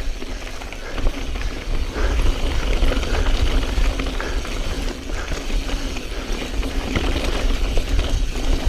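2016 Specialized Stumpjumper S-Works full-suspension mountain bike descending loose, rocky singletrack: tyres grinding over rock and gravel, with scattered clicks and knocks of the bike rattling over the stones. Wind rumbles steadily on the action camera's microphone underneath.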